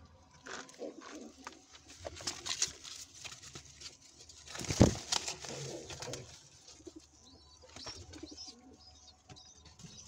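Domestic pigeons cooing in their nest boxes, with rustling handling noise and one loud thump about five seconds in. A few short high chirps come near the end.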